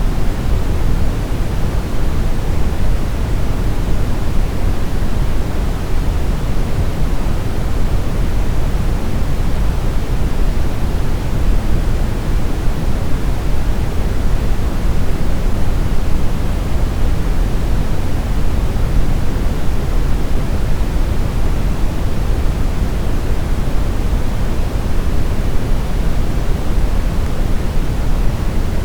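Continuous brown noise: a steady, even hiss-like rumble weighted toward the low end, unchanging throughout.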